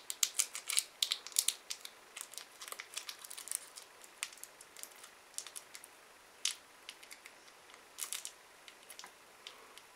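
A sweet's wrapper crinkling and crackling as fingers pick and peel it off a sticky candy. There is a quick run of crackles over the first few seconds, then only scattered ones.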